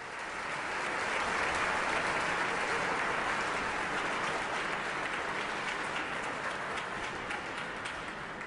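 Applause from a crowd, a dense patter of many hands clapping that fades in over the first second and slowly dies away near the end.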